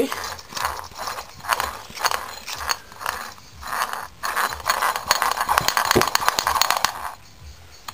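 Reassembled gear train of a Sachs engine clicking and rattling as its gears are turned by hand, with fast irregular ticks throughout; the clicking stops shortly before the end.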